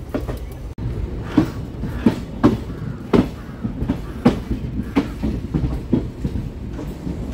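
Passenger train running, heard from on board: a steady low rumble of the coach, with sharp clacks of the wheels passing over rail joints and points about every half second to second, unevenly spaced.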